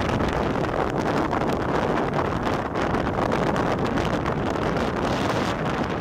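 Strong storm wind buffeting the microphone in a steady, fluttering rush, over the wash of rough surf breaking on the beach.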